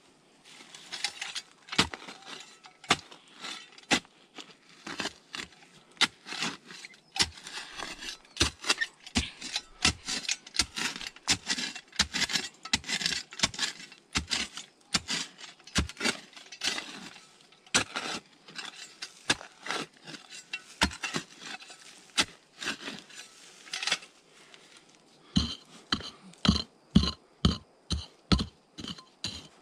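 Metal hand tool striking and scraping stone and earth, in irregular knocks and clinks. About 25 seconds in it settles into a steady run of ringing metallic strikes, about two a second.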